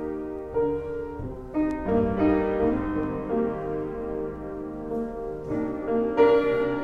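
Slow, gentle piano music: sustained chords that change every second or so.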